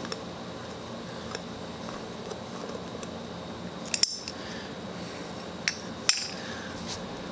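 Small metallic clicks and clinks as the round back cover plate of a Singer Model 66 sewing machine is taken off its arm and handled: a loud double click about four seconds in and another sharp click about six seconds in, over a steady background hum.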